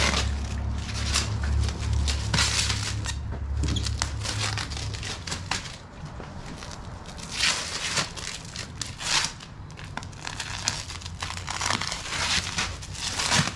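Packing wrap being torn and crumpled by hand, in irregular rustling bursts, as a moving-company-wrapped framed picture is unwrapped.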